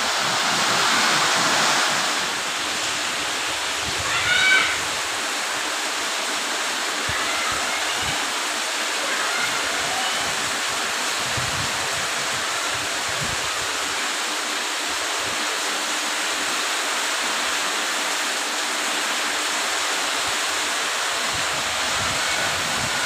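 Heavy torrential rain pouring down in a steady hiss, with runoff from a roof splashing onto the ground. A brief high call sounds about four seconds in.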